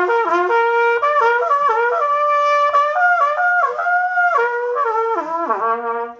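Trumpet played loudly in a quick run of notes up and down, sliding down about five seconds in to a low held note that then stops.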